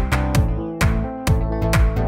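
Background music with a steady electronic beat: a deep kick drum about twice a second over held chords.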